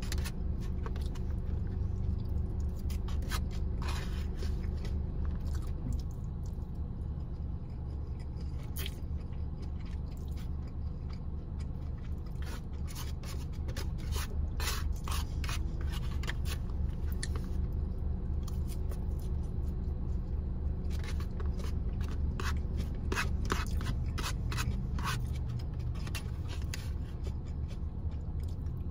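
Black plastic fork scraping and clicking against a polystyrene foam takeout container, in irregular clusters, with close chewing of chow mein noodles. A steady low hum lies beneath.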